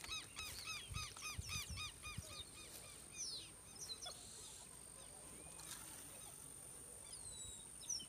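A bird calling in a fast run of nasal, honking notes, about five a second, that stops about two seconds in. A little later comes a short falling swish as a fishing rod is cast.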